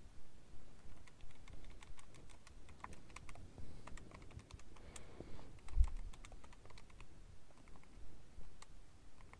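Keys of a handheld calculator being pressed in quick, irregular runs of clicks as figures are keyed in, with one low thump a little past halfway.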